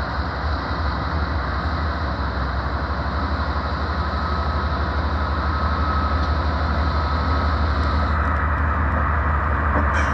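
Several diesel-electric freight locomotives pulling a train slowly off a siding, their engines a deep pulsing rumble with a thin steady whine above it, growing slowly louder as they approach.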